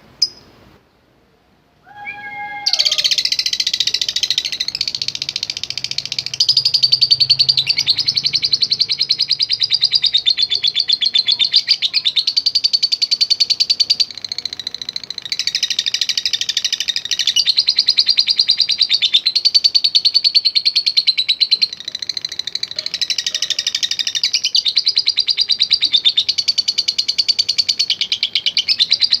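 Lovebird giving a long, very rapid chattering trill, the 'ngekek panjang' used to spur other lovebirds to sing. It starts about three seconds in after a brief silence and runs on with short breaks about halfway and again near two-thirds through.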